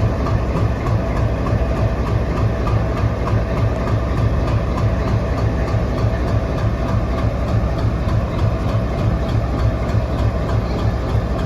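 Diesel locomotive engine running steadily, with a regular low throb of about five beats a second.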